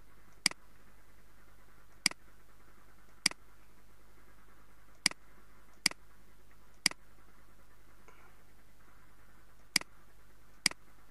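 Computer mouse button clicking: eight sharp single clicks at uneven intervals over a faint steady background hiss.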